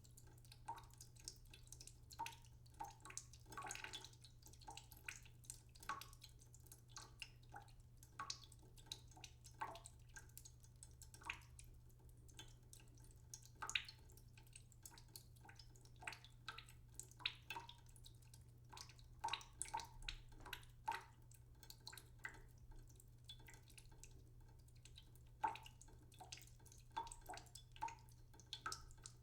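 Water dripping slowly into a cooking pot in a sink: faint, irregular drips about two or three a second, each a short, slightly ringing plink.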